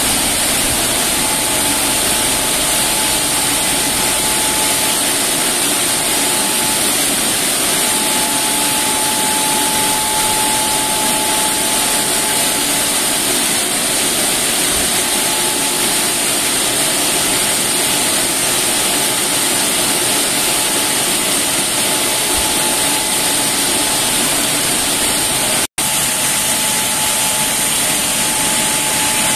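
Automatic rollover car wash at work: its brushes and water spray make a steady, loud rushing hiss, with a steady whine running through it. The sound drops out for an instant near the end.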